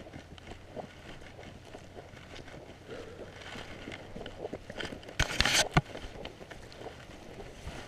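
Footsteps of a person walking across a harvested field, with clothing rustling. A brief loud rustle comes about five seconds in.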